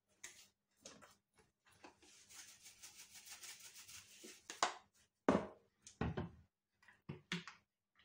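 Salt shaken from a plastic shaker over a plastic pot: a faint, fast rattle of grains for about two seconds. Then several sharp clicks and knocks of plastic containers being handled, the loudest about halfway through.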